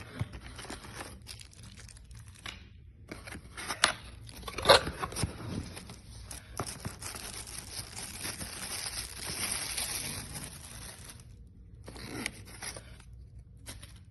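Crinkling, tearing handling noise with scattered sharp clicks and knocks, the loudest knock about five seconds in.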